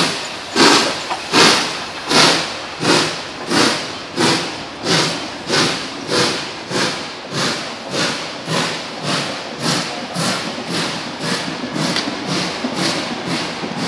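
Hr1 steam locomotive No. 1009 pulling away with its train: evenly spaced exhaust chuffs that quicken and grow fainter as the engine gathers speed and moves off.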